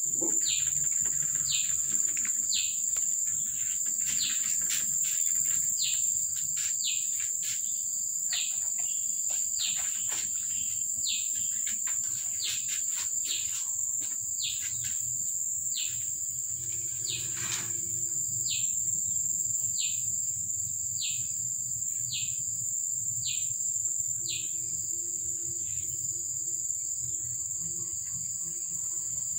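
A steady, high-pitched insect drone, with a bird repeating a short falling call about once a second that stops near the end.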